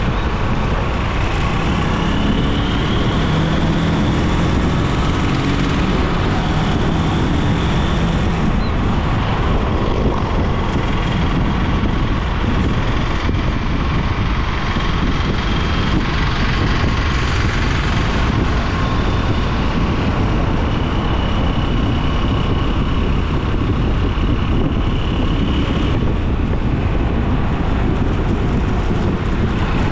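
Steady wind and road noise from a vehicle travelling along a paved road, with its engine running underneath. A pitched engine drone stands out over the first several seconds.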